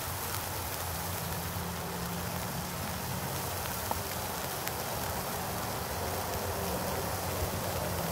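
Steady sizzling of food frying in a pan on a camp stove, with a couple of small pops midway.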